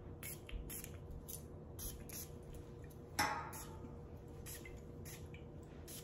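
A perfume bottle's spray pump spritzing once, about three seconds in, among faint light clinks and rustles.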